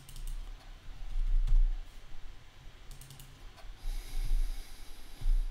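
Typing on a computer keyboard in several short bursts of keystrokes, entering numbers into software fields.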